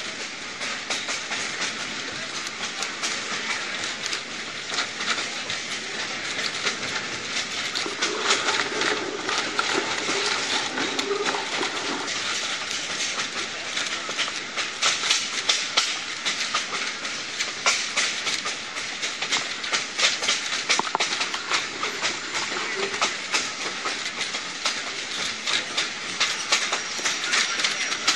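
Passenger train car running along the track, heard from on board: a steady rattling clatter with rapid, irregular clicks of the wheels on the rails.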